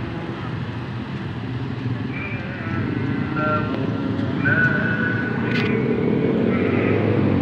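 Street traffic: motorcycles and cars passing with a steady engine and tyre rumble that swells a little partway through.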